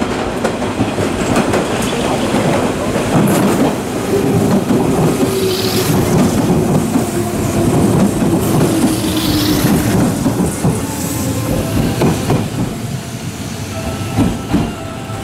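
Hanshin 5001-series electric train running in over the station's points: wheels clacking over rail joints and crossings, a whine that falls in pitch as it slows, and two short wheel squeals on the curves.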